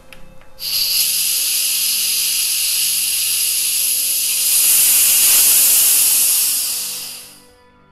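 Pressure relief valve on a 9.5-litre Cornelius-style homebrew keg pulled open, venting CO2 in a loud, steady hiss that starts abruptly and dies away over the last second. The keg's headspace pressure is being let off before the lid is opened.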